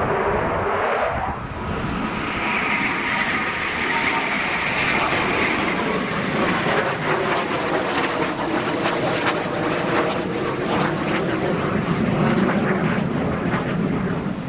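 Jet aircraft engines running loud and steady, with a whine dropping in pitch during the first second.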